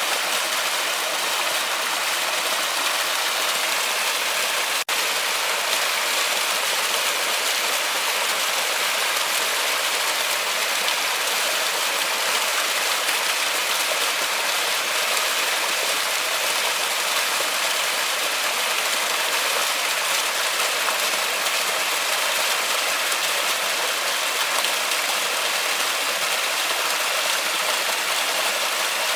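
Forest waterfall: a steady rush of falling water, mostly a high hiss with little low rumble. There is a momentary dropout about five seconds in.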